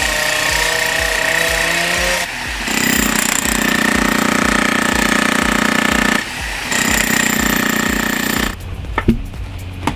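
Electric demolition hammer breaking up a cracked concrete pad, running in long stretches with two short pauses, then stopping near the end, followed by a few sharp knocks.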